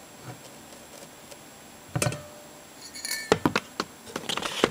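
Glass Coca-Cola bottle being handled and clinked: one knock about two seconds in, then a quick run of clinks and taps with brief glassy rings near the end.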